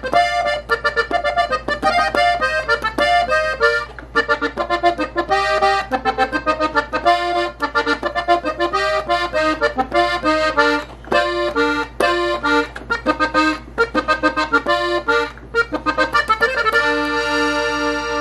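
F-tuned Gabbanelli three-row button accordion played in B-flat at full speed: quick, ornamented runs of short, separated notes, settling on a long held chord near the end.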